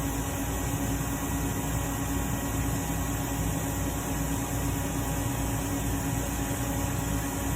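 Steady machine hum with a constant low tone and an even hiss, unchanging throughout.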